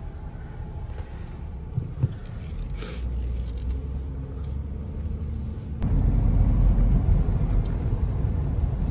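Low rumble of a BMW's engine and tyres heard from inside the cabin while driving, getting louder about six seconds in. A single sharp click about two seconds in.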